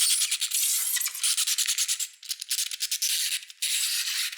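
Rapid, dense ratcheting clicks of a wind-up kitchen timer being twisted. They come in three stretches, with short breaks about two seconds in and again about three and a half seconds in.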